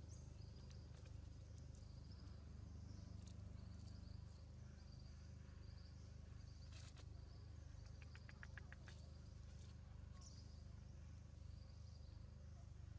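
Near silence: faint outdoor ambience, with insects chirping high and thin about once a second over a steady low hum. A quick run of about eight ticks comes a little past the middle.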